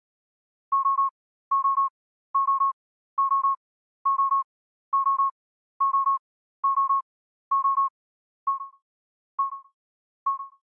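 Electronic alarm beeping from a spacesuit wrist display, warning of low oxygen. Quick triple beeps repeat about once a second, then near the end three single beeps trail off and fade.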